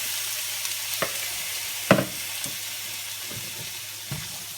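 Chopped onion, celery and green pepper sizzling in hot oil in a frying pan, a steady hiss, with a few knocks of a utensil stirring against the pan, the loudest about two seconds in.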